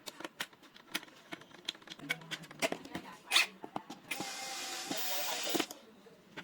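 Light clicks and taps of handling small parts, then an electric screwdriver runs steadily for about a second and a half near the end, driving in a screw for the lock.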